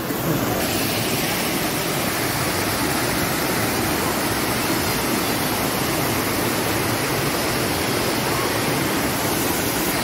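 Waterfall and fast-flowing river water rushing steadily, an even noise with no breaks.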